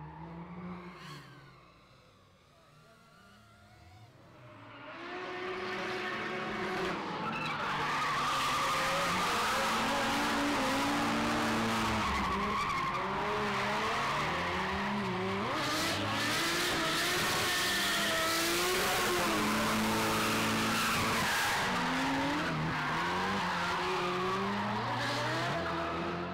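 Drift car engines revving hard, their pitch rising and falling with the throttle, over tyres skidding and squealing. The sound grows loud about five seconds in and stays loud.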